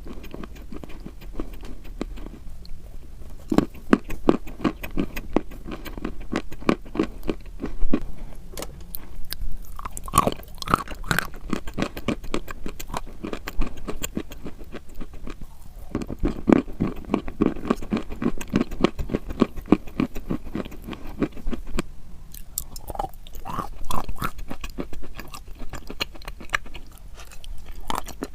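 A person biting and chewing crunchy chalk: a dense run of crisp crunches, with a few short pauses between bites.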